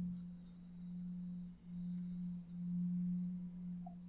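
A steady low drone tone in the meditation's background sound bed, holding one pitch while it swells and dips in loudness every second or so.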